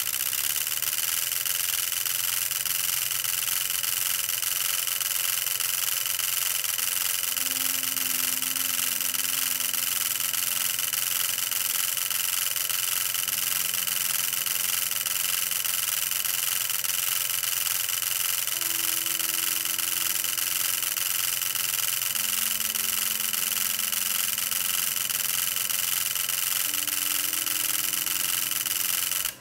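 The relays of a relay-built Nand2Tetris ALU switching so fast while it computes that their clicks merge into one steady, dense, hiss-like buzz. Faint low tones shift every few seconds beneath it.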